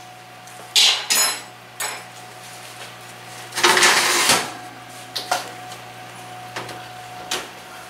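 Metal clatter of a cast iron skillet and oven rack: a couple of sharp knocks about a second in, a longer scraping rattle around the middle as the rack is slid back into the oven, then a few lighter knocks as the oven door swings shut.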